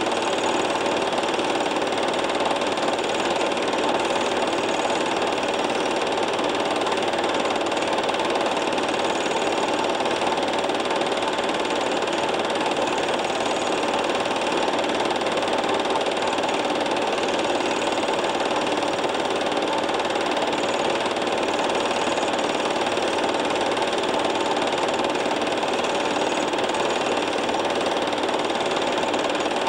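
Film projector running steadily, its motor and film mechanism making an even, unchanging mechanical clatter.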